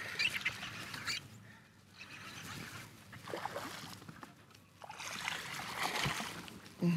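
Water splashing and sloshing on and off as a hooked largemouth bass thrashes at the surface beside the boat while being reeled in, loudest in the last couple of seconds.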